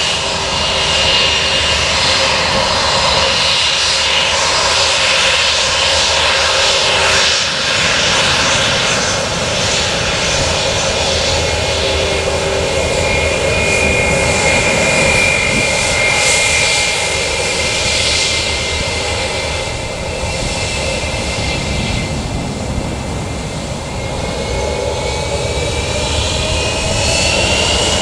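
Airbus A320's IAE V2500 turbofan engines running at low thrust as it taxis, a steady jet noise with a whine over it. Over the last few seconds the whine rises in pitch as the engines spool up.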